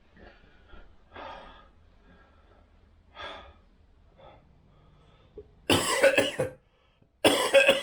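A man coughing with COVID: two loud coughing fits near the end, each a quick run of several coughs, after a few faint sounds.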